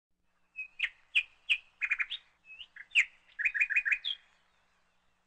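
Small bird chirping: a string of short, sharp high notes, ending in a quick run of about five notes.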